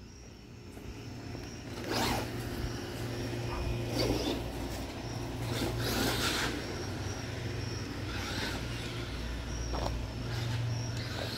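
Traxxas Maxx electric RC monster truck driving in short throttle bursts a little way off, each burst a brief raspy swish of motor and tyres on pavement about every two seconds, over a faint steady low hum.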